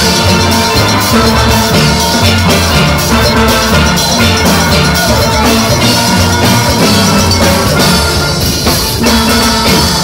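Steel orchestra playing live: a full ensemble of steel pans, from high lead pans to deep bass pans, struck with rubber-tipped sticks over a steady driving beat.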